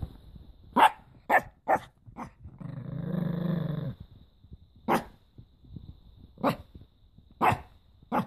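Small black-and-tan dog barking: four sharp barks in quick succession, a low growl lasting about a second and a half, then single barks spaced roughly a second apart.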